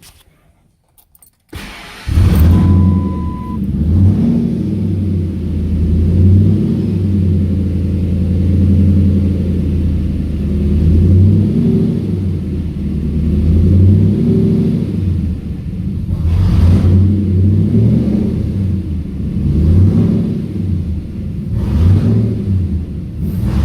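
Whipple-supercharged 5.4 L V8 of a 2003 Ford SVT Lightning starting cold after a moment of quiet, then running at a lumpy idle that swells and dips every couple of seconds. A short beep sounds just after it catches.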